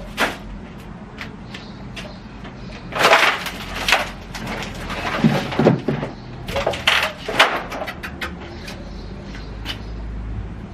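A plastic shopping bag rustling as things are taken out of it, with scattered knocks, thuds and clicks from boxes and containers being handled and set down. The noises come in several clusters rather than steadily.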